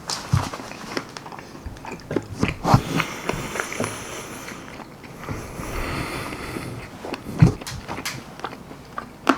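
Close-up biting and chewing of baked almond-flour-breaded chicken wings: irregular wet mouth smacks and clicks, with two louder bites about three seconds and seven and a half seconds in.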